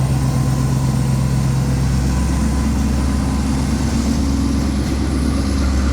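Steady low drone of heavy diesel engines running, dropping to a deeper hum about two seconds in.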